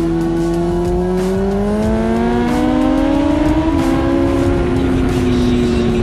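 BMW M1000RR superbikes' inline-four engines at speed on a race track, heard over wind rush, their pitch climbing as they accelerate out of a corner, with a gear change about two and a half seconds in.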